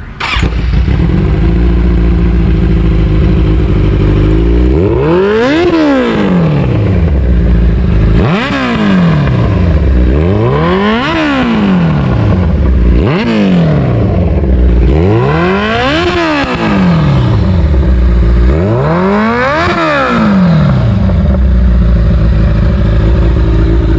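Kawasaki Ninja 1000's inline-four engine through its twin exhaust, starting up and idling, then revved up and let fall back six times before returning to idle. It is loud.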